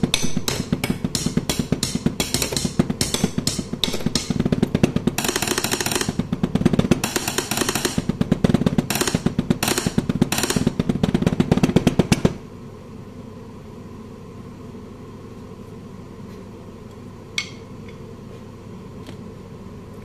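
Wooden drumsticks drumming fast on kitchenware, a dense run of strikes with a brief bright, hissing roll partway through. The drumming cuts off suddenly about twelve seconds in, leaving room tone and a single tap near the end.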